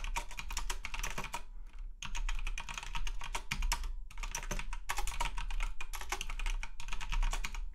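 Rapid typing on a computer keyboard, dense runs of key clicks broken by short pauses about two and four seconds in, over a steady low hum.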